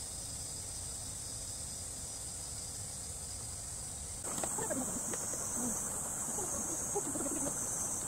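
Steady high-pitched chirring of a chorus of summer insects, stepping up a little in loudness about four seconds in.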